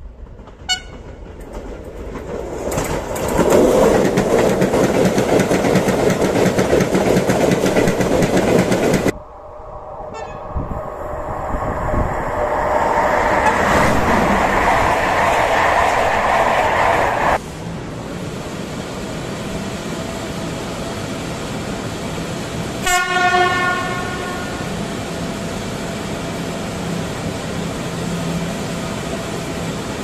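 Trains sounding short horn greetings. A short horn note comes as an electric train approaches, then the loud rush of it passing. After a cut there is another short horn note under a second train passing. After a further cut a locomotive hums steadily and gives one brief, sharp horn blast about two-thirds of the way through.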